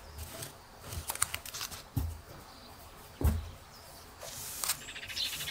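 Handling noise from yarn and a crochet hook being moved on a cloth-covered table: a few soft knocks and taps, the loudest a little over three seconds in, then some light rustling near the end.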